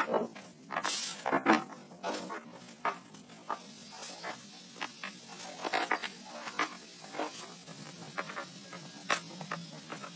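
Small wooden log slices clacking and knocking as they are picked from a box and set down one by one onto a pine board: irregular short wooden clicks, a couple each second.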